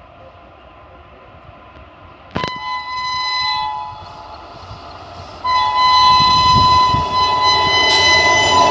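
WAP-7 electric locomotive's horn sounding twice: a short blast about two and a half seconds in, then a long one from about five and a half seconds that carries on. The noise of the approaching train rises under it near the end.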